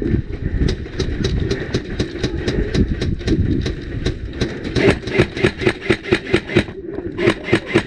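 Airsoft gun firing a rapid string of shots, about six to seven a second, with a short pause near the end before a few more, over a low rumbling noise.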